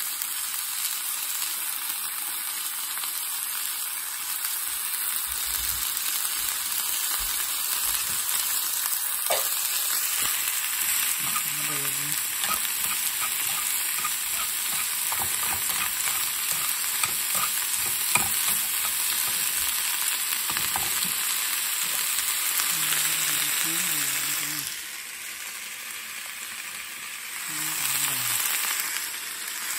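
Diced onions and bell peppers sizzling as they fry in a nonstick pan, stirred with chopsticks that click and scrape against the pan. The sizzle dips for a couple of seconds near the end.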